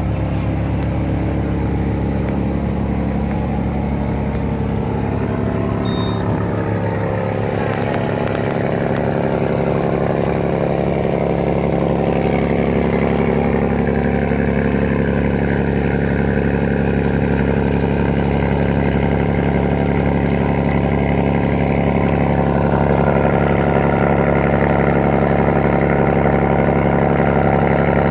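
Ferry's engine running steadily, its pitch shifting slightly about eight seconds in and growing gradually louder.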